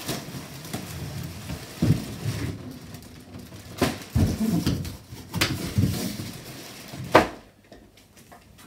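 Plastic wrapping crinkling and cardboard rubbing as a plastic-wrapped pram carrycot is pulled out of its box, with scattered knocks, and one loud thump about seven seconds in as it is set down on the floor.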